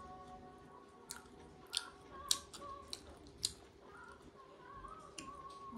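Close-up chewing and mouth sounds of people eating chicken with their hands, with about half a dozen sharp smacks and clicks spread through it.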